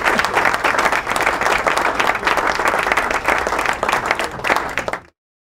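Applause from many people clapping together, cutting off suddenly about five seconds in.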